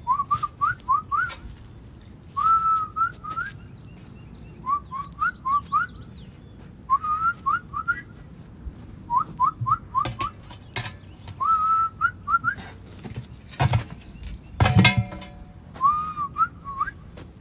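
A person whistling a tune in repeated phrases of short rising notes, some ending on a held note. A few sharp knocks come late on, the loudest about fifteen seconds in with a brief metallic ring.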